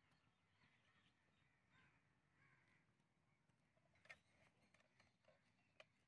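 Near silence with faint bird calls in the background, and two short clicks, the louder about four seconds in.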